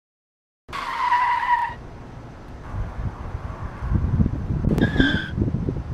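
Wind rumbling on an outdoor microphone around a horse working in a sand arena, with two short high, whistle-like tones: one about a second in, lasting about a second, and a higher, shorter one about five seconds in.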